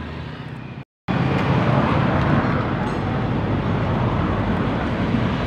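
Steady road traffic noise from passing vehicles, starting after a brief silent cut about a second in.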